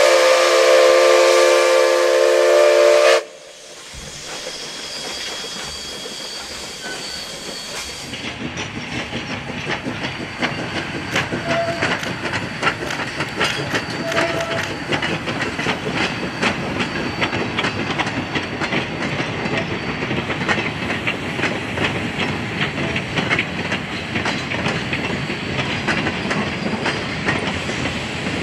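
Steam locomotive chime whistle, McCloud Railway No. 25, a held multi-note blast that cuts off abruptly about three seconds in. Then a freight train hauled by the steam locomotive Polson Logging Co. No. 2 rolls past, growing louder over several seconds into a steady clatter of wheels and cars on the rails.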